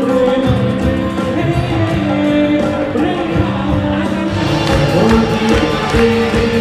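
Loud amplified live band music: a woman and a man singing into microphones over keyboard, electric guitar and drums.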